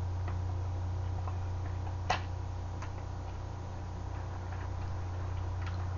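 Someone eating freshwater eel bones: a few faint clicks of chewing and chopsticks, with one sharper click about two seconds in, over a steady low hum.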